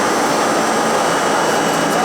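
R32 subway train running, with a steady loud noise of wheels on the rails and running gear.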